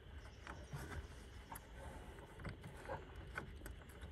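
Faint scattered small metallic ticks and light scrapes as a lock washer and nut are fitted by hand onto the bottom mounting bolt of an ATV disc brake caliper, over a low steady rumble.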